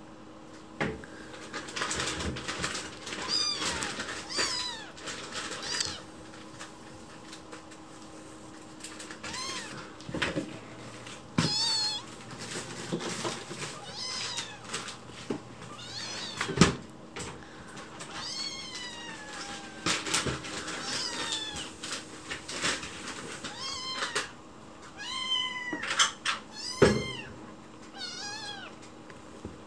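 A young kitten meowing over and over in short, high, rising-and-falling cries, begging for food. Two sharp knocks stand out, one a little past the middle and one near the end.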